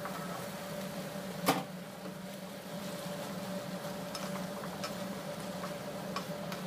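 Cubed squash and bottle gourd tipped into a frying pan and stirred with a wooden spatula. There is one sharp knock about a second and a half in, then a few light taps, over a steady hum.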